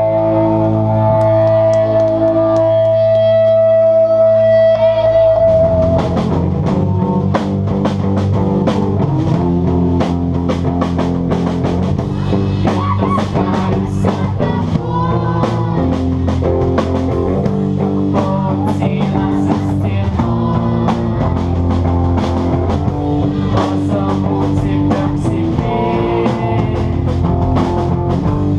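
Live rock band playing: electric guitars and bass hold sustained chords for the first five seconds or so, then the drum kit comes in with cymbals and snare and the band plays a driving rock groove.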